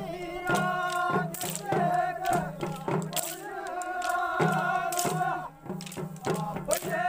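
Kodava kolaat stick-dance music: a sustained melody over a steady low beat, punctuated by sharp clacks of the dancers' canes striking together.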